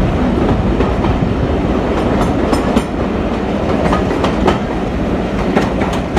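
Train running along the track, wheels clicking over the rail joints over a steady rumble.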